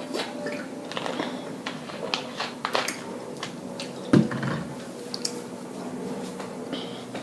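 Close-up eating sounds: a run of sharp wet mouth clicks and smacks, then one short, louder low sound about four seconds in.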